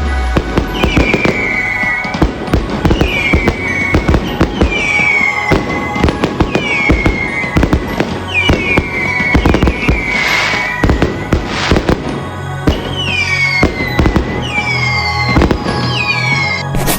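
Fireworks exploding in rapid, irregular bangs and crackles, over background music with a falling melodic figure repeating about once a second; a pulsing bass line joins about three-quarters of the way through.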